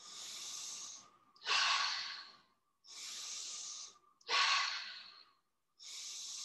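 A person breathing deeply, in through the nose and out through the mouth. Steady in-breaths alternate with louder out-breaths that fade away, about one full breath every three seconds.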